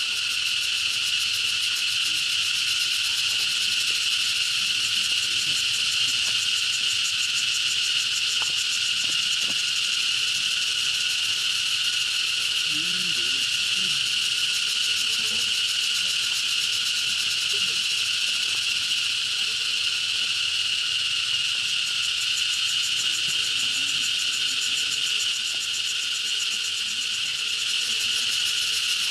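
Steady, shrill chorus of insects, an unbroken high-pitched buzz with a fine rapid pulse in it.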